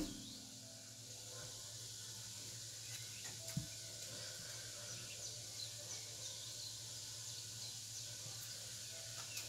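Quiet kitchen background: a steady low hum under a faint hiss, with one soft thump about three and a half seconds in.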